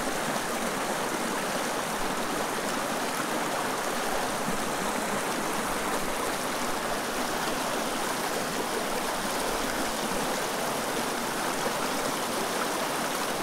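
Small mountain creek running over rocks and around fallen logs: a steady rush of water.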